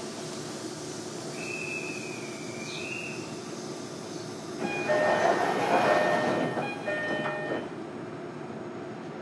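Interior sound of a JR Kyushu 305 series electric train car, a steady hum throughout. A brief high, slightly wavering tone sounds in the first few seconds. About halfway through comes a louder stretch of about three seconds, with several steady tones over noise and a short break near its end.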